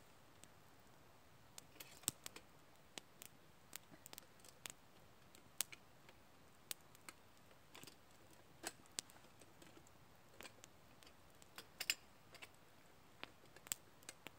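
Small wood campfire crackling, with sparse, irregular sharp pops and snaps over a quiet background.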